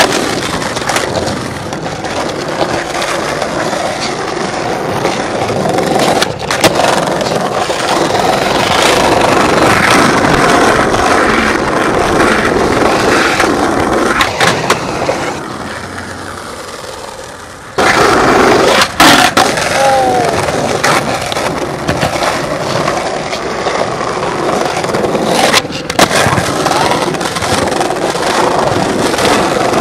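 Skateboard wheels rolling over paving, with a handful of sharp clacks from the board popping and landing on tricks. The rolling dies away about halfway through, then comes back abruptly.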